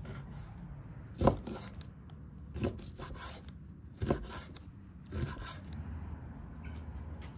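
Chef's knife slicing raw lamb into chunks on a wooden cutting board: four strokes about a second and a half apart, each a knock of the blade on the board followed by a short scrape.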